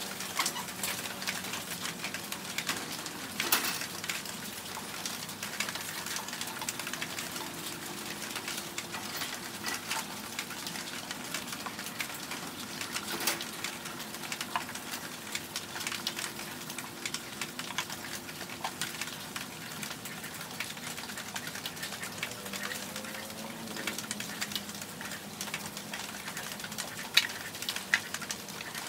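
Small paint roller rolling black paint onto MDF speaker cabinets: a wet, sticky crackle with scattered clicks.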